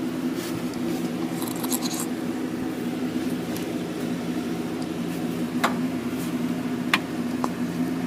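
Steady low mechanical hum, with a few faint clicks and scrapes of handling in the second half.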